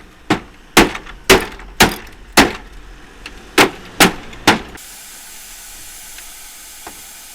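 A series of eight sharp knocks, about two a second, from striking the casing of a mobile air conditioning unit while breaking it apart for scrap; they stop a little over halfway through, leaving a faint steady hiss.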